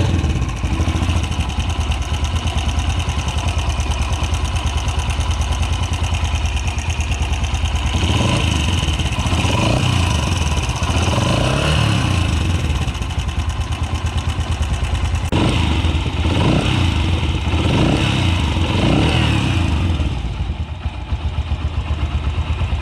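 Yamaha YBR125 single-cylinder four-stroke engine running in short clips spliced together, idling and being revved. The clips compare the 'khir khir' cam chain rattle with the engine's sound after an improved cam chain tensioner is fitted.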